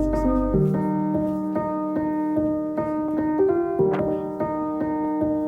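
Background music: a piano playing a repeated pattern of notes at a steady beat, with a low bass line dropping out about half a second in.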